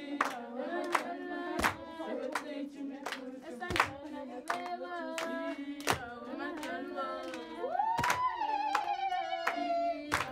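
A group of children singing together and clapping in rhythm, sharp claps roughly every half second with heavier thumps about every two seconds. About eight seconds in, a high voice slides up and holds a long note over the group.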